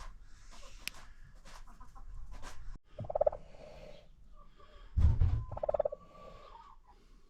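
Chickens calling, with two loud short calls about two and a half seconds apart among scattered light clicks. A dull thump comes about five seconds in.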